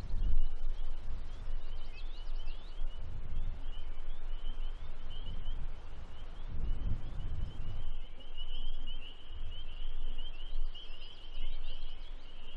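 A steady chorus of short, high peeping calls repeated many times a second, with low rumbles of wind on the microphone coming and going.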